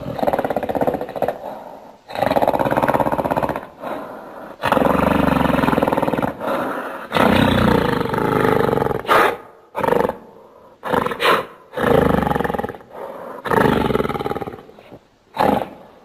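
Gorilla roar and growl sound effects: about eleven loud, rough roars one after another. Most last one to two seconds, with a quick run of short ones in the middle.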